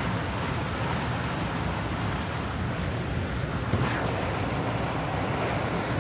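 Steady rushing and splashing of floodwater pushed aside by a car driving through it, with a low rumble underneath. There is a short click a little past the middle.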